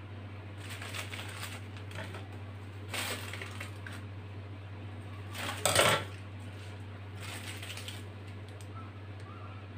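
Small metal kitchen utensils clinking and knocking as they are handled and set down on a stone countertop, a few separate clatters with the sharpest about six seconds in, over a steady low hum.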